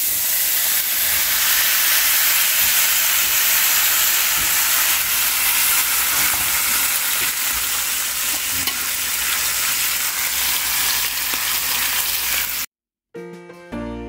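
A butterflied whole chicken sizzling in hot oil in a frying pan: a steady, dense sizzle. It cuts off suddenly near the end, and after a brief silence music begins.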